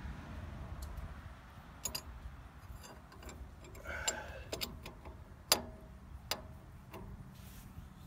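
Scattered metallic clicks and taps of a wrench and Allen wrench against the nut and set screw on a John Deere 300B radial hydraulic pump as the nut is tightened, about eight in all, the sharpest a little past halfway.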